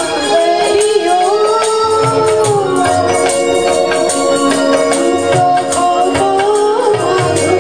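Live Indian devotional music: harmonium chords held steady under a sung melody that glides and bends, with deep tabla strokes in the bass.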